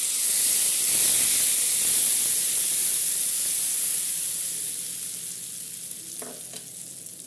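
Hot tempering oil (tadka) with cumin and whole dried red chillies poured onto cooked dal palak, sizzling and fading away steadily over several seconds as the oil cools in the dal.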